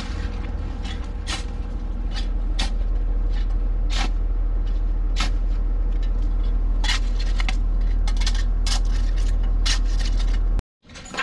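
A steel shovel scraping and digging into soil in a trench, with short sharp scrapes and clinks at irregular intervals, roughly one a second, over a steady low rumble.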